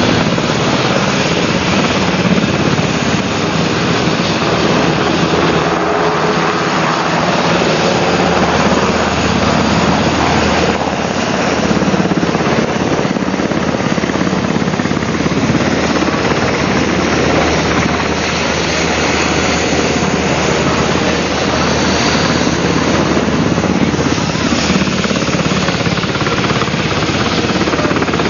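Helicopter engine and rotor running, a loud steady drone.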